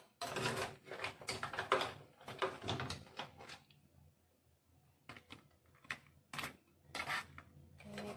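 Cooked crab pieces in their hard shells being moved and set down in a ceramic serving dish: a run of knocks and scrapes, a short pause, then several sharp separate clicks of shell against the dish.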